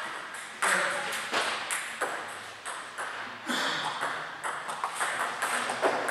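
Table tennis rally: a celluloid ball clicking off rubber-faced bats and bouncing on the table in quick, irregular succession, echoing in a large sports hall.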